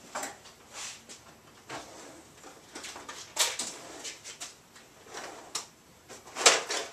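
Scattered clicks and knocks of objects being handled and moved about, with the loudest clack near the end.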